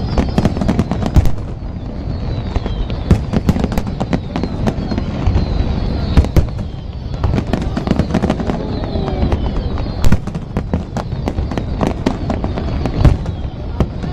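Aerial fireworks display: a dense, rapid barrage of shell bursts and crackling. The loudest bangs come about a second in and again around six, ten and thirteen seconds.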